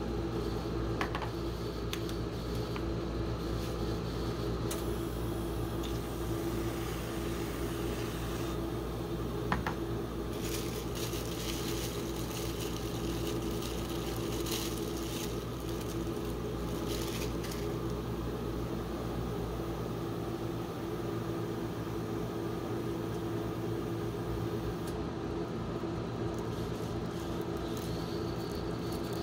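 Steady hum with a clear tone from the refrigeration unit of a rolled-ice-cream cold-plate machine. A stretch of hissing in the middle comes from whipped cream sprayed from a can.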